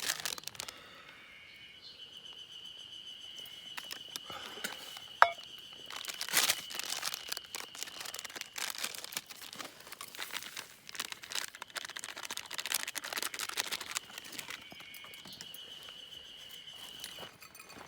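Rustling and crinkling as something is handled, with sharp clicks and rattles in the middle. A steady high trill, like an insect's, runs behind it.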